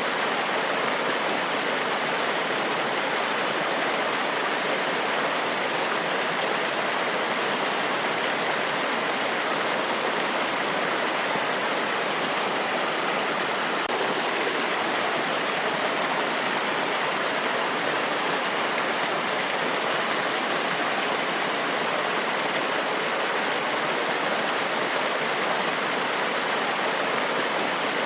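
Forest waterfall: a steady, unbroken rush of falling water, an even hiss with nothing else standing out.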